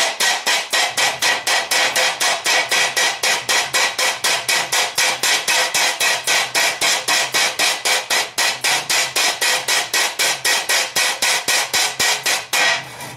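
Hand hammer rapidly striking a red-hot steel frying-pan blank on a steel plate, about five even blows a second with a metallic ring, flattening the heated centre into the pan's bottom. The hammering stops shortly before the end.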